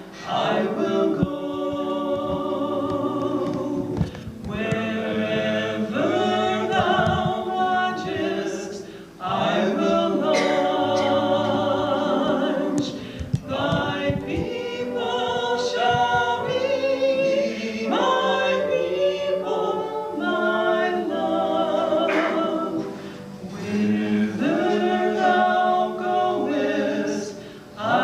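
A group of voices singing together unaccompanied, a choir or congregation singing a hymn in phrases with short breaths between them.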